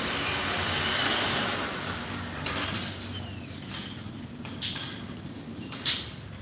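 A steady outdoor hiss, then a few sharp knocks and clicks from construction work on the greenhouse frame and scaffolding, about one a second in the second half.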